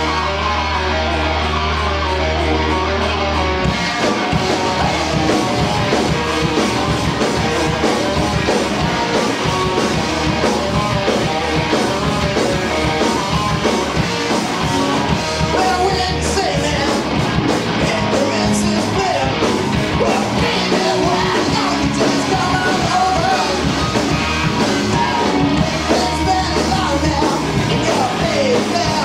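Live rock band playing: electric guitars, bass and drums with a male lead vocalist singing. A low held note opens, then the drums come in at about four seconds and the full band carries on at a steady loud level.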